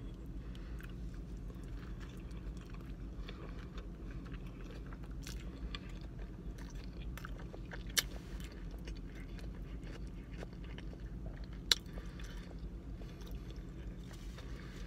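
A person chewing a mouthful of burger with her mouth closed: soft, wet mouth sounds and small clicks, with two sharper clicks about 8 and 12 seconds in, over a steady low hum.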